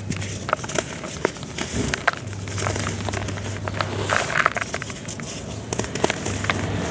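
Dry red dirt being crumbled by hand: a dense, irregular run of small crunches and crackles.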